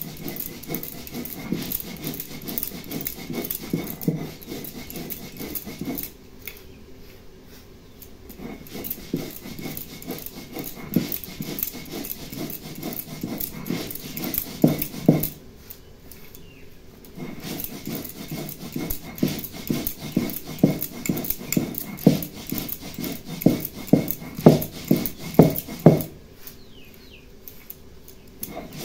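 Stone roller rubbed quickly back and forth on a stone grinding slab (shil-nora), grinding sesame seeds and parboiled rice to powder: a fast run of gritty scraping strokes that stops briefly three times.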